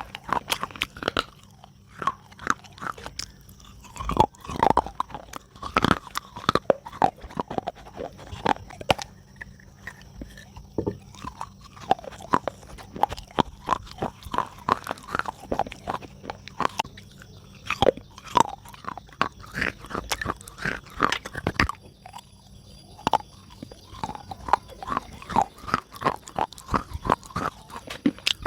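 A person biting and chewing pieces of soft clay pot, a continual run of wet crunches.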